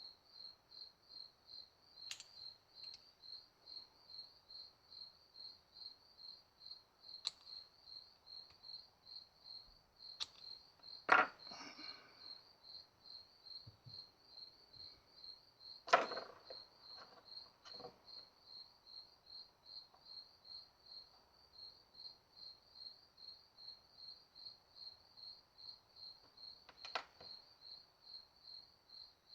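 A cricket chirping steadily, about two to three chirps a second, with a few sharp clicks and knocks of a small pick hook tool working an O-ring out of a metal VANOS piston; the two loudest knocks come a little over a third in and just past halfway.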